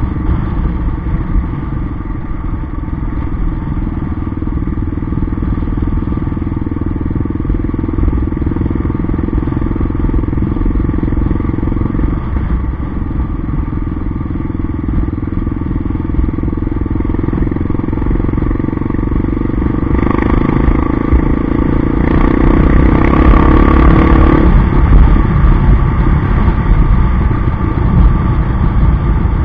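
Yamaha XT 600 single-cylinder four-stroke engine running as the motorcycle rides along. About two-thirds of the way through it pulls harder and gets louder for a few seconds, then eases back.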